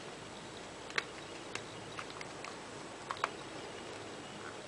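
Light scattered clicks and scratches of fingers and nails prying at the clip-on plastic back cover of a T-Mobile G1 (HTC Dream) phone, working its tabs loose. The sharpest click comes about a second in, with a close pair just after three seconds.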